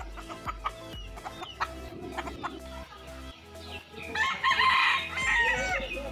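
A rooster crows once, loudly, about four seconds in, with chickens clucking before and after it.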